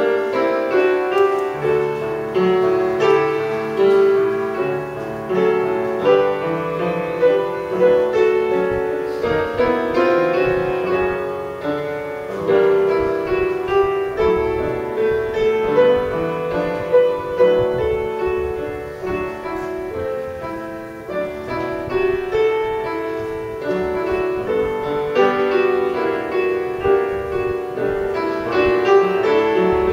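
Solo piano playing a slow, continuous piece, one note after another with no pauses.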